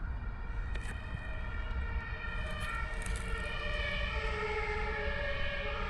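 A siren sounding with a slowly shifting, stepping pitch, over a steady low rumble.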